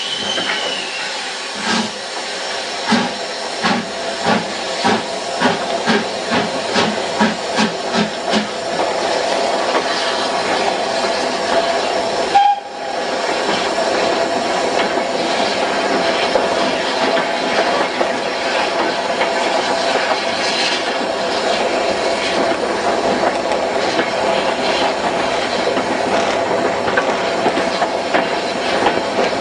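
Steam locomotive pulling away, its exhaust beats coming closer together until they reach about two a second. After a sudden break about twelve seconds in, the moving train gives a steady rush of noise.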